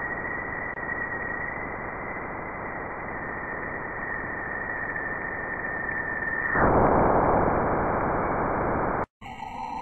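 Recording presented as the sound of Jupiter, the planet's radio emissions turned into audio: a dense static-like hiss with a steady high whistle over it. About two-thirds of the way through, the whistle stops and the hiss grows louder. Near the end it cuts off abruptly, and after a brief gap a different eerie sound begins.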